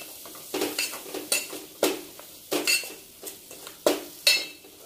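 Steel spoon scraping and clinking against a stainless steel pot in irregular strokes, about every half second, while stirring kolim (tiny salted shrimp) frying in masala and oil over a low flame. The oil sizzles softly underneath.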